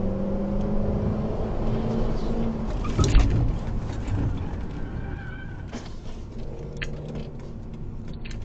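Car engine and road noise heard from inside the cabin, with one loud bang of impact about three seconds in, followed by a few faint clicks.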